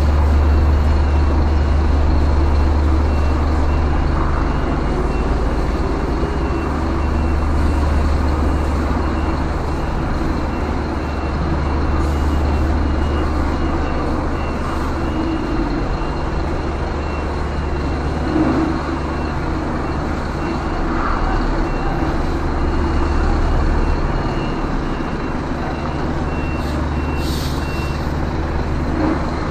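Scania truck's diesel engine running low and steady while reversing, its reverse alarm beeping at a steady pace. Near the end the beeping stops and there is a short hiss of air.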